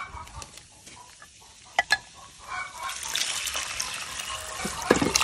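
Broth poured from a ceramic jug into a pan of fried onions and pearl barley, splashing steadily from about three seconds in. Two sharp knocks come a little before the pour.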